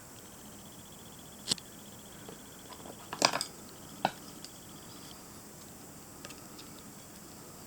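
A few sharp clicks and knocks over a faint steady hiss: one about 1.5 seconds in, a short cluster a little past 3 seconds (the loudest), and one about 4 seconds in.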